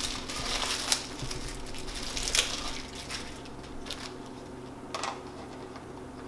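A small plastic packet rustling and crinkling as a Phillips screwdriver bit is unwrapped, with a few light clicks and knocks. The handling is busiest for the first two seconds or so, then thins to scattered clicks as the bit is handled at the drill.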